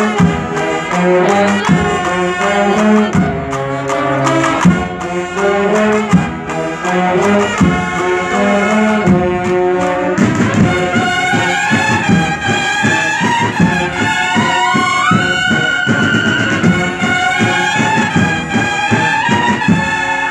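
Holy Week processional brass band playing a march with drums. Low held brass chords with regular drum strokes give way about halfway through to a higher trumpet melody over busier drumming.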